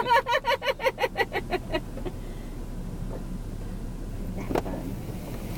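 Laughter in quick rhythmic bursts for about the first two seconds, then the steady low hum of a car's engine and road noise heard from inside the cabin.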